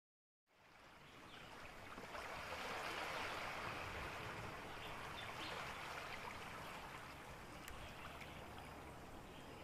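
Faint steady rushing noise that swells about two seconds in and slowly fades away.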